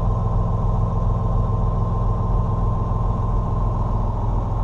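Farm tractor's engine running steadily.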